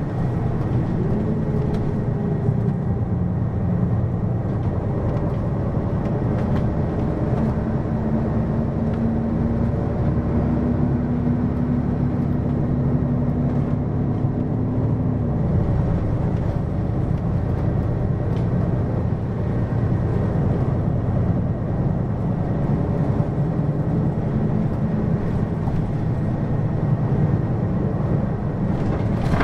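Hino QKG-LV234N3 city bus under way: a steady diesel engine note over road rumble. The note climbs slowly, then drops about halfway through.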